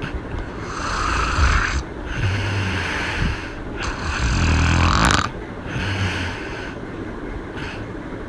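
A woman snoring through an open mouth: a run of rasping snoring breaths, each about a second long with a low rattle. The loudest comes about four to five seconds in.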